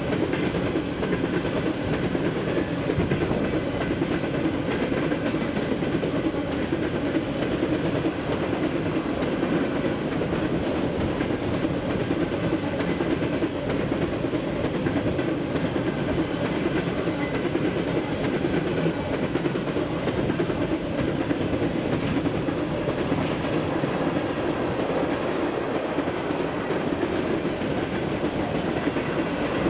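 Empty grain hopper cars of a freight train rolling past, a steady rumble of steel wheels on rail with the clickety-clack of the wheels over the track.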